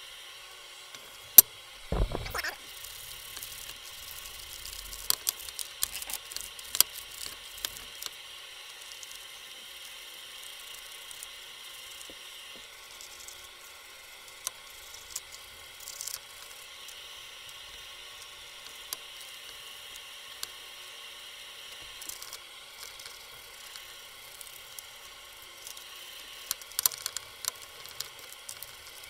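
Paper being handled and rubbed on a metal workbench: sheets rustling and sliding, with scattered small clicks over a steady faint hiss. A sharp click comes about a second in, then a low thump near two seconds.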